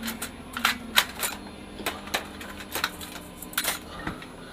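Irregular clicks and light metallic clinks of small metal parts and tools being handled, about a dozen sharp taps over a faint steady hum.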